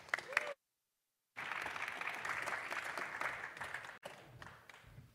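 Audience applauding. There is a dead-silent gap in the audio until about a second and a half in, then clapping for about two and a half seconds, which drops to faint scattered sound near the end.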